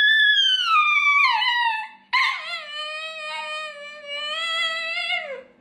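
A dog howling back after being barked at: a long howl that slides down in pitch, then after a short break a second, lower howl that holds steady and drops away near the end.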